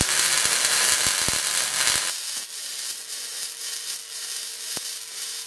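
Wire-feed welder arc laying a bead on steel, a steady crackling sizzle. Strongest for the first two seconds, then a little softer.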